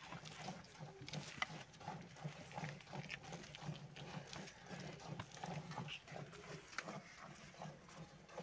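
Cow being milked by hand: milk squirts from alternating teats hit the froth in a steel pot, repeating in a quick, steady rhythm.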